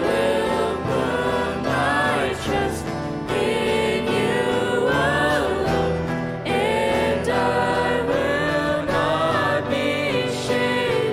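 Contemporary worship song sung by three young female voices in harmony, with guitar accompaniment.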